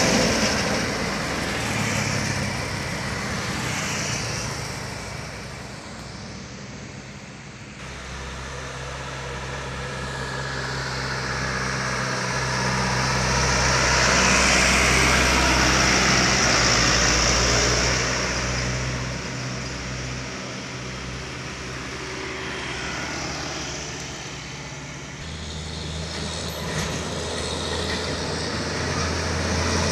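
Heavy diesel trucks and a bus driving past one after another on a sharp bend. Engine noise swells as each vehicle goes by: loud at the start, fading, loud again in the middle, and rising again near the end.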